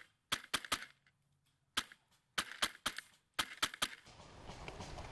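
Airsoft Polar Star DMR firing about a dozen sharp, snappy shots in quick groups: three together, one alone, three more, then four in fast succession, with dead silence between them. Steady outdoor background noise comes back about four seconds in.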